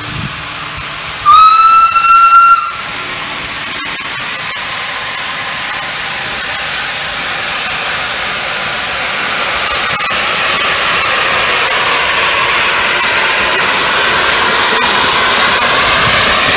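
Narrow-gauge steam locomotive's whistle sounding one clear blast of about a second and a half, a little over a second in, its pitch lifting slightly as it starts. After it a steady hiss builds up and grows louder.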